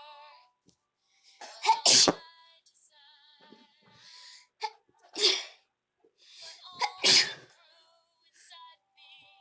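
A person with a cold sneezing: three sharp sneezes about two to three seconds apart, the first and last the loudest.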